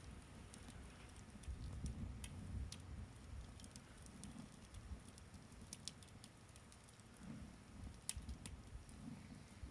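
Wood fire crackling: faint, irregular snaps and pops over a low rumble, with one sharper pop about eight seconds in.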